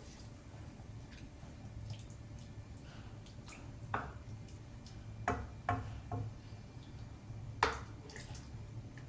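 Kitchen sounds: a handful of light knocks and clinks, a few of them ringing briefly like utensils or dishes, over a steady low hum.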